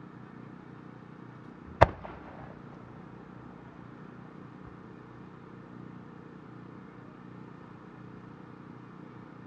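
A single sharp boom of a fireworks shell being fired from its mortar about two seconds in, with a short echo after it, over a low steady background.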